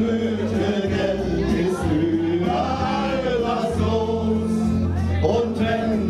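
A group of men and women singing a song together, in chorus, over backing music.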